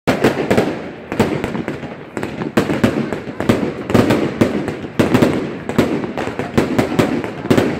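Fireworks going off close by: a dense run of sharp bangs and crackles, several a second.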